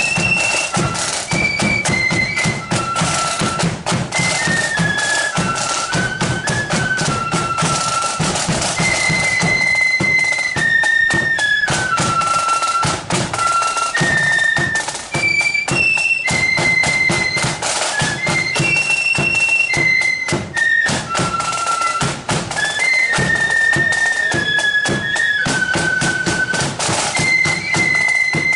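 Marching flute band playing a tune in unison on flutes over snare and bass drums, with a steady marching beat.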